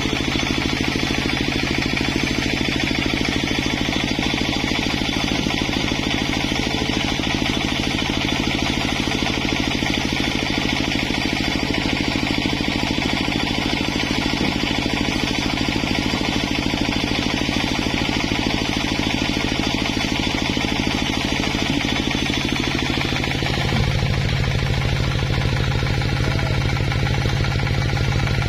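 An engine running steadily. About 24 seconds in its note shifts and the low end grows louder.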